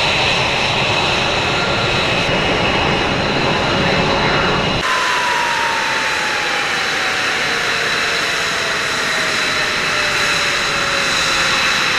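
F-22 Raptor's twin turbofan jet engines running with a steady high-pitched whine over a broad rumble. About five seconds in the low rumble drops away abruptly, and a lower tone then falls slowly and steadily in pitch under the whine, as an engine spools down.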